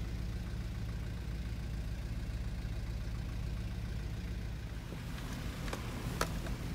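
Toyota Land Cruiser 100's V8 engine idling steadily, heard from inside the cabin, with a couple of light knocks near the end.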